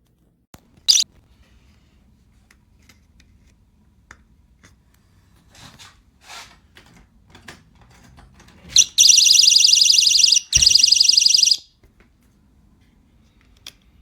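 A HIIXHC wireless magnetic door/window alarm sounding: a short high beep about a second in, light plastic handling clicks, then its shrill, rapidly pulsing alarm for about three seconds, cut through by a sharp knock partway. It goes off when the sensor and its magnet piece are pulled apart.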